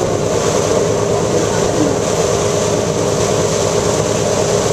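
Steady drone of a tour boat's engine running while underway, a constant low rumble with no change in pace.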